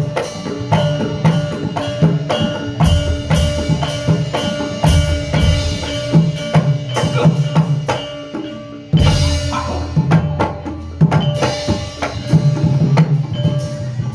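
Drum-led traditional percussion music with rapid strikes over ringing tuned percussion, accompanying a dance. About two-thirds through it drops briefly, then comes back loud.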